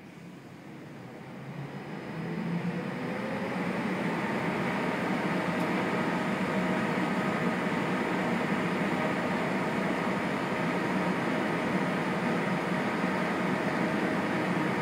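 ICE 1 high-speed train standing at the platform with its ventilation and cooling fans running: a steady rushing hum with faint tones that swells over the first few seconds, then holds steady.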